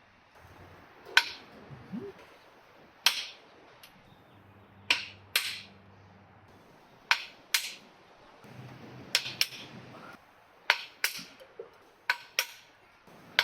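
Sharp metal-on-metal strikes, like hammer blows on steel, about a dozen of them, mostly in close pairs every couple of seconds, each ringing briefly.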